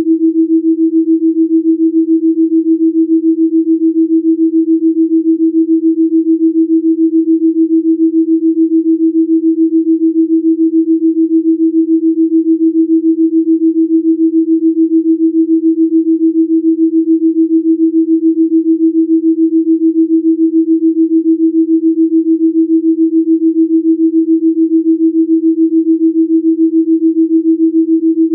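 A single steady pure sine tone, a little above 300 Hz, pulsing evenly in loudness: a Rife-frequency pure tone made as a delta-wave beat for meditation.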